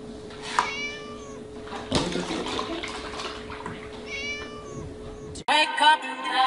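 Domestic cat meowing twice, a long bending meow about a second in and another about four seconds in, while milk is poured near it. Music starts suddenly near the end.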